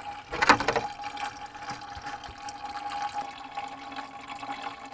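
Hot engine coolant trickling in a thin stream from a 2009 Toyota Prius's coolant heat storage tank into a drain pan. A brief louder noise about half a second in.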